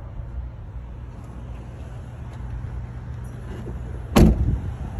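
A 2021 Ford Bronco's door slams shut once, loudly, about four seconds in, over a steady low rumble.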